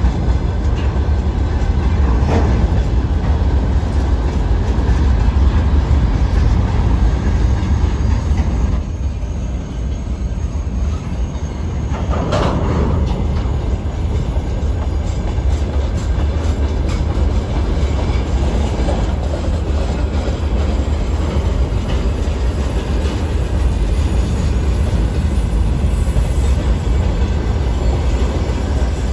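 Freight train of open gondola wagons rolling past close by: a steady, loud rumble of wheels on the rails. It swells louder briefly twice, about two seconds in and again about twelve seconds in.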